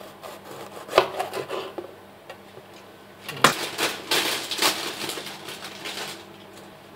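Large kitchen knife cutting the top off a yellow bell pepper on a wooden cutting board: crisp crunching of the blade through the pepper flesh, with two sharp knocks of the blade or pepper on the board, about a second in and again past three seconds, then a longer stretch of crackly scraping and handling.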